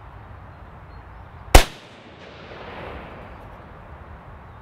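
One shot from a Type 99 Arisaka sniper rifle in 7.7x58mm Japanese, about a second and a half in, with a fainter drawn-out tail trailing off over the following second.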